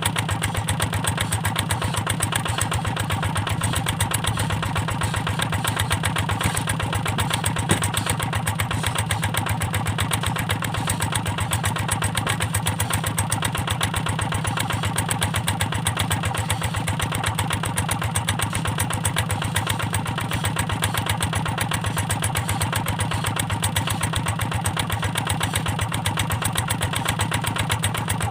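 A hand tractor's single-cylinder diesel engine running steadily at an even speed.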